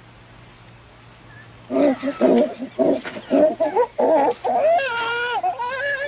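Wild chimpanzees giving a chorus of hooting calls, starting about two seconds in: rhythmic panting hoots that climb in pitch and build into long, high-pitched calls from several voices near the end. The chorus signals the arrival of another group.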